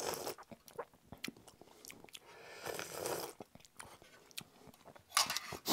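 A person slurping spicy ramen broth and noodles off a spoon, with chewing and small clicks of a titanium spoon against the metal mess kit; slurps come at the start, about three seconds in, and near the end.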